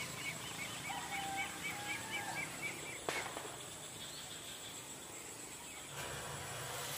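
A bird calling a quick series of short, repeated high chirps, about five a second, which stops about two and a half seconds in. A single sharp click comes just after.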